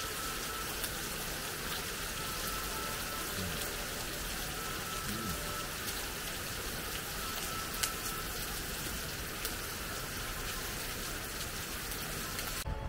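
Heavy rain pouring down steadily, a dense even hiss with an occasional sharp tick of a drop striking a surface; it cuts off abruptly just before the end.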